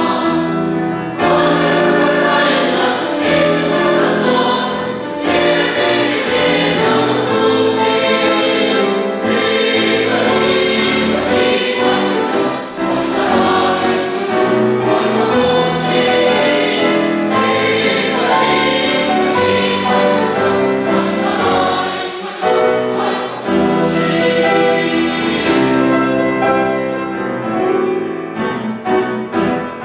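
Boys' and young men's choir singing a song in Russian with accompaniment, a continuous choral passage.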